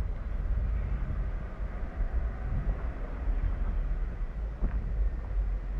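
Jeep Gladiator's 3.6-litre V6 running at low speed as the truck turns slowly, a steady low rumble with wind buffeting the microphone.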